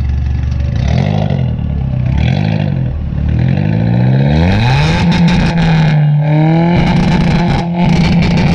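Tata Indigo's engine revving through its aftermarket Remus twin-tip exhaust: two quick throttle blips from idle, then longer revs held high with a short dip in the middle.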